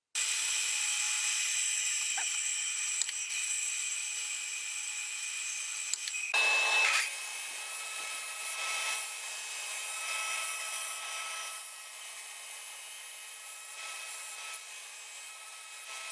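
A drill press running as it bores a hole through the steel tang of a knife blade, then, after a short loud change about six seconds in, a belt sander running steadily as a wooden handle scale is ground against the belt.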